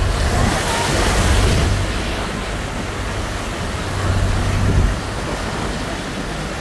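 Floodwater rushing and splashing, loudest in the first two seconds as a vehicle ploughs through it and throws up spray, over a low rumble that drops away about five seconds in.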